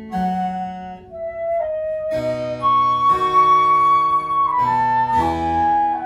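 Wooden baroque transverse flute (traverso) playing a slow melody. It holds one long high note about halfway through, then steps down, over a lower accompaniment.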